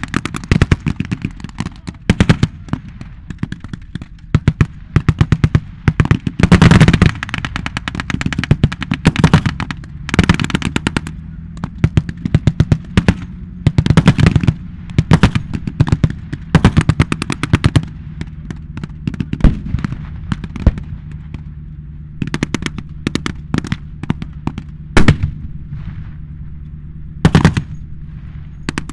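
Bursts of blank-firing machine guns and rifles: rapid strings of sharp cracks, dense in the first half, thinning later to scattered shots and a few single loud reports. A steady low hum runs underneath.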